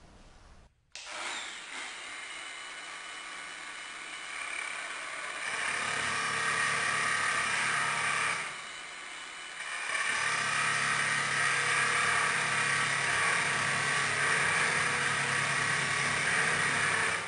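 Angle grinder starting up about a second in and cutting into prefinished parquet boards. The cutting gets louder about five seconds in, eases briefly a little past the middle, then carries on loud.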